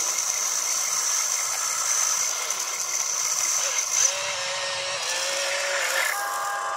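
Electric gear motors of a radio-controlled excavator whining as it scoops dirt with the bucket and lifts the boom. A steady high whine stops about four seconds in, then a lower motor tone runs while the boom rises.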